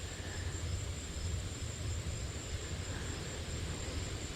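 Steady wind noise on the microphone, a low rumble, with insects keeping up a thin, continuous high-pitched drone.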